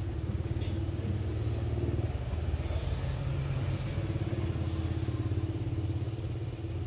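A small engine idling steadily, a low rumble with a fast even pulse.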